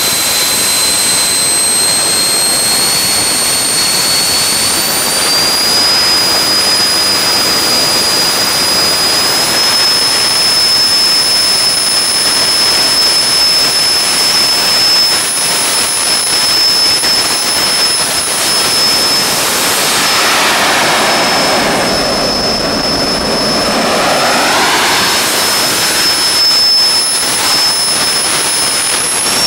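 Home-built turbojet engine running at full throttle on a test stand: a loud, steady jet rush with a high turbine whine. The whine climbs in pitch over the first few seconds as the engine spools up, then holds steady. About two-thirds of the way through, the rush briefly sweeps in tone.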